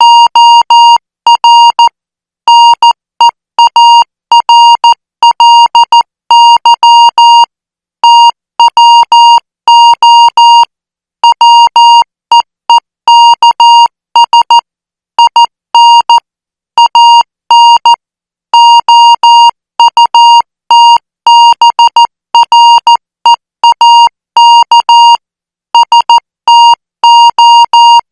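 International Morse code sent at 14 words per minute as a steady high beep keyed on and off. Short dots and longer dashes, with brief gaps between letters and longer gaps between words.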